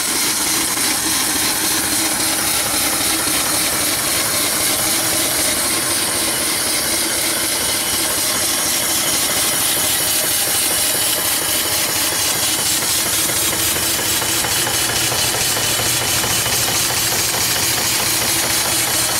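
Small single-cylinder steam engine with a flyball governor, running fast on open throttle, with a steady hiss of steam and a fast, even exhaust beat.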